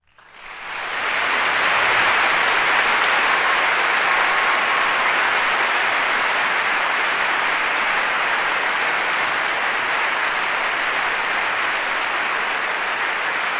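Steady applause from a crowd, fading in over about the first second and then holding even.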